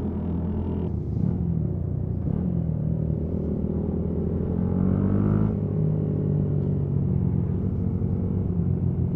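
Motorcycle engines running on a group ride. One engine revs up around five seconds in and settles back.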